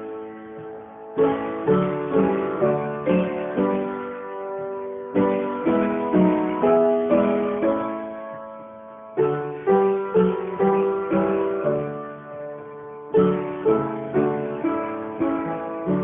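Solo instrumental music on guitar: picked notes and chords in phrases of about four seconds, each opening with a strong note and then ringing away.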